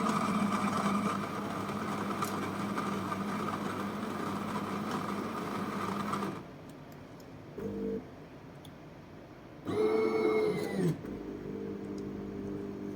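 Automatic bean-to-cup coffee machine's built-in grinder running steadily on whole beans, then stopping abruptly about six seconds in. Afterwards come a couple of short tonal sounds and a quieter, steady machine hum.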